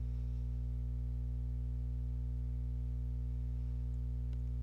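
Steady, unchanging low hum, with a couple of faint ticks from a plastic spoon stirring in the skillet near the end.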